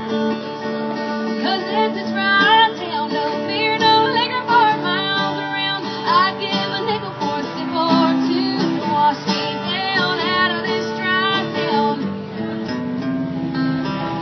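Acoustic guitar strummed live in a country song, with a sliding melody line above the chords and no sung lyrics.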